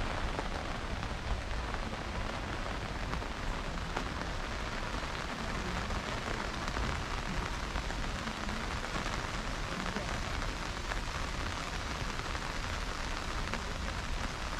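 Steady rain falling: an even hiss with scattered sharp ticks of single drops.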